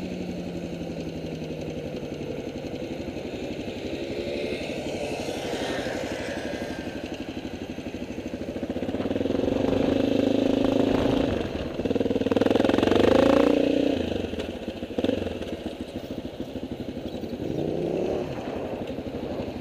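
Motorcycle engine running steadily, growing louder and revving in the middle before settling back.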